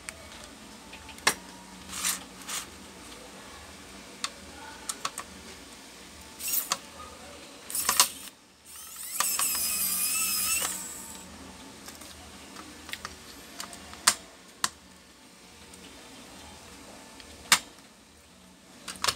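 Clicks and knocks of a graphics card and small tools being handled on a workbench, then a pen-style electric precision screwdriver whirs for about two seconds, its motor whine wavering slightly, as it backs a screw out of the card.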